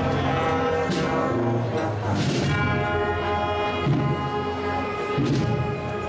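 Holy Week procession band of brass and drums playing a march, with long held brass chords over drum strokes about every second and a half.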